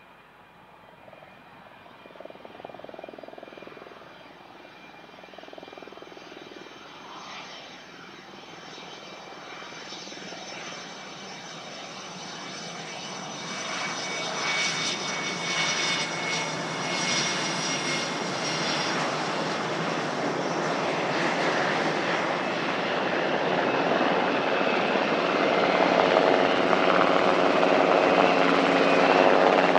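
RAAF F/A-18 Hornet's twin jet engines whining as it rolls out along the runway after landing, with several high steady tones growing louder. Near the end a Sikorsky MH-60 Seahawk helicopter's rotor and engine hum takes over, low and getting louder as it approaches.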